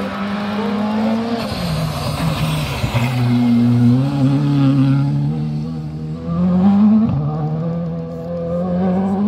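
Rally car engine running hard. Its pitch falls as the car slows into a corner, holds, then climbs near the end with a sharp drop at a gear change.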